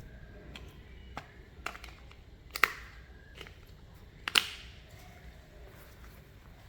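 Scattered sharp clicks and snaps of small things being handled, the two loudest about two and a half and four and a half seconds in, over a faint low hum.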